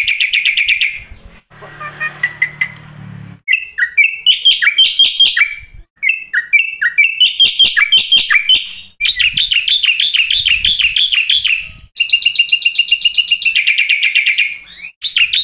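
Black-winged myna (jalak putih) singing loud, rapid series of repeated trilled and chattering phrases, with a short quieter break about two seconds in.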